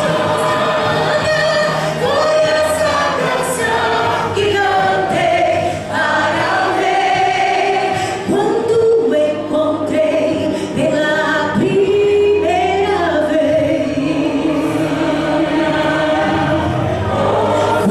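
Choir singing a slow sacred piece in long held notes that rise and fall, over a steady low accompaniment.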